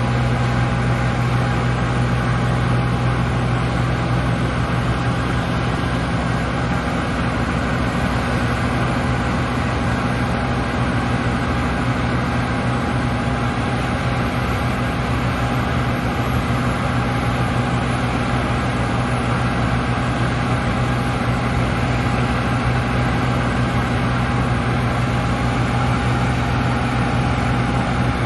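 Diesel engine of heavy harvest machinery running steadily at constant speed: a deep hum with a thin, steady whine above it.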